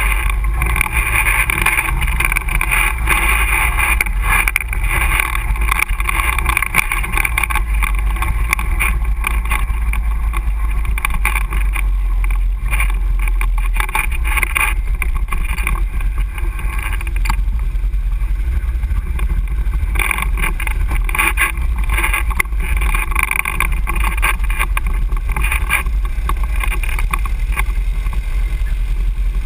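Can-Am ATV engine running steadily under way on a rough dirt trail, close to the microphone, with wind buffeting the microphone and frequent knocks and rattles from the bumps.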